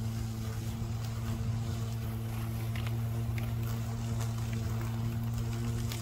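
Battery-powered Stihl 235 lawn mower's electric motor and blade running with a steady hum while mowing grass, with a few faint ticks near the middle.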